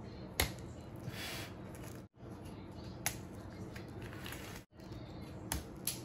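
A few short, sharp clicks as soldered nickel tabs on a scooter battery pack's BMS board are heated with a soldering iron and pried upward to break free: one just after the start, one about three seconds in and two near the end. A steady low hum runs underneath, cut off twice by brief dropouts.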